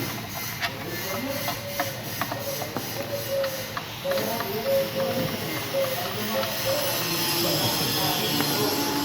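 Scattered light clicks and knocks, several a second in places, over a steady hiss, with faint voices in the background.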